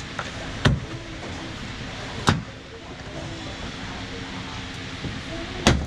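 Retaining clips of a plastic car trim cover snapping loose one by one as the cover is pulled off: three sharp pops, about a second in, a second and a half later, and a louder one near the end.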